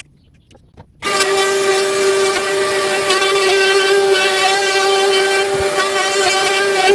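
DeWalt trim router running at speed with a steady high whine. It comes in abruptly about a second in, after a brief quiet.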